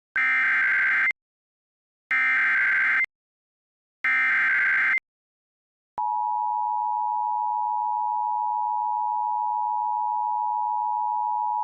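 Emergency Alert System activation on FM radio: three one-second bursts of the SAME header's screechy digital data, then about six seconds in the steady two-tone EAS attention signal starts and holds. Together they announce a severe thunderstorm warning.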